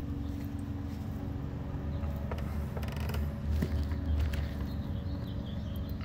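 A truck engine idling steadily, a low even rumble, running to pass charge to a vehicle with a failing battery. A few faint creaks and clicks sound over it.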